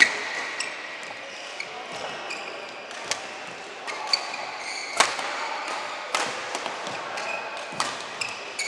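Badminton rally: rackets striking the shuttlecock in sharp cracks, one every second or so, the hardest hits at the very start and about five seconds in, echoing in a large hall. Short high squeaks from shoes on the court mat come between the hits.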